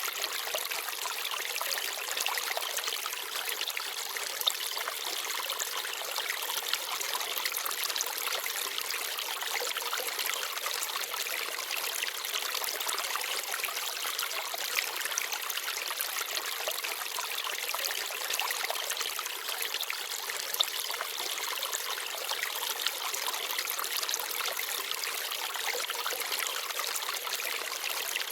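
Small forest stream babbling and trickling steadily over stones, a continuous bright water sound with little low rumble. It carries a few brief louder splashes.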